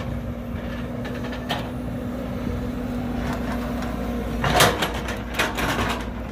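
Sumitomo S265 hydraulic excavator's diesel engine running steadily as its bucket digs wet mud from a ditch, with a few knocks from the bucket and boom, the loudest about four and a half seconds in.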